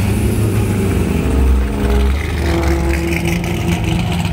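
A car engine running loud, its pitch rising and falling a few times as the throttle changes.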